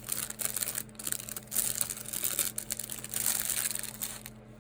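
Packaging crinkling and rustling as a crochet hook is unwrapped by hand, with irregular crackles that die away near the end.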